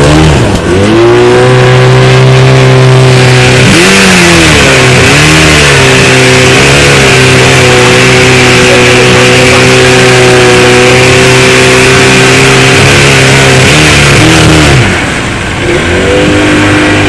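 Boat's petrol engine running hard under way, its pitch dipping briefly and picking back up about half a second in, around four seconds in, and again near the end. A steady rush of water and wind runs with it while the boat is at speed.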